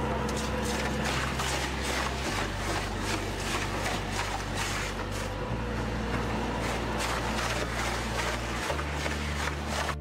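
Industrial wood shredder's spiked steel drum turning and grinding wood blocks, a steady dense scraping noise. Background music runs under it, a low held bass note that changes pitch about every three seconds.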